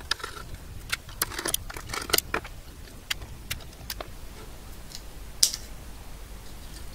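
Small metallic clicks and clinks of a screwdriver backing screws out of a power supply circuit board mounted on a sheet-metal chassis, with the screws and board being handled. The clicks come in a quick cluster during the first couple of seconds, then more sparsely, with one sharper clink about five and a half seconds in as the board is worked loose.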